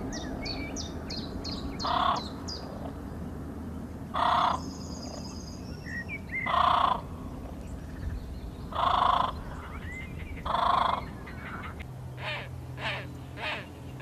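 Birds calling: five loud, harsh calls come about two seconds apart over high, quick twittering from smaller birds. Near the end a faster run of shorter calls follows, roughly two a second.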